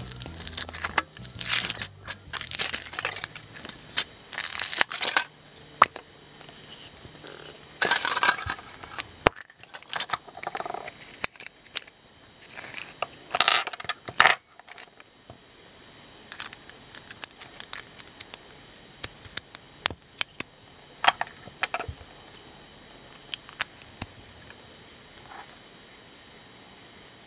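Foil wrapper of a giant Kinder Surprise chocolate egg crinkling and tearing in several loud bursts over the first dozen seconds or so. Then scattered small plastic clicks and taps as the toy inside is unpacked and handled.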